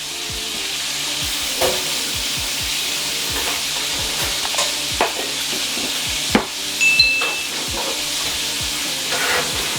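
Food frying in a pan with a steady sizzle, over a run of quick knocks from a spoon stirring batter in a bowl. A brief high beep sounds about seven seconds in.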